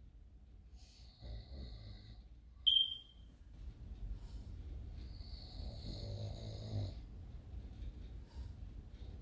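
A man snoring: a short snore about a second in, a brief high whistle near three seconds, then a longer drawn-out snore.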